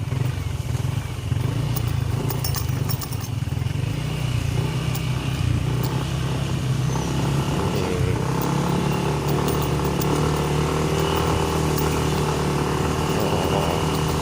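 Motorcycle engine running steadily as the bike travels a rough trail, with scattered clicks and rattles.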